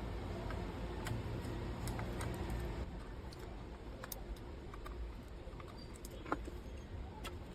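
Scattered light clicks and taps of tools and a graphics card being handled on a workbench, over a low hum that eases about three seconds in.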